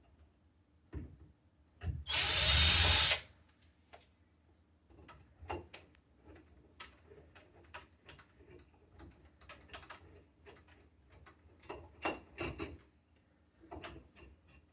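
A power drill/driver runs for about a second, followed by a string of small clicks and taps of lock hardware being handled.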